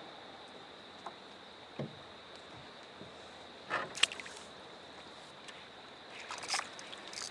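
Water lapping and splashing against the hull of a small fishing boat, with a few short splashes or knocks about 2 seconds, 4 seconds and 6 and a half seconds in.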